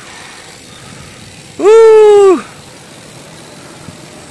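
A single loud horn blast lasting just under a second, about a second and a half in, with a short glide up at the start and a drop at the end. It sits over steady wind and road noise from riding.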